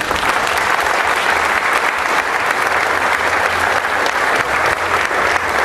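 Audience applauding: a dense, even clapping of many hands.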